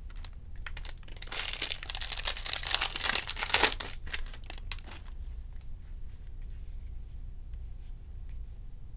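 A baseball-card jumbo pack's wrapper being torn open and crinkled, from about a second in until about five seconds in, loudest near the middle. After that come only faint rustles as the cards are handled.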